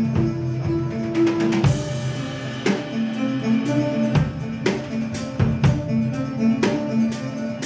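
Earth Harp playing live: its very long strings, stroked lengthwise by hand, sound long held notes over drum hits.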